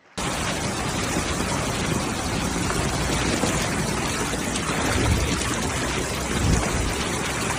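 Steady, even noise of heavy rain and floodwater as cars drive through a flooded street. It starts abruptly just after the beginning.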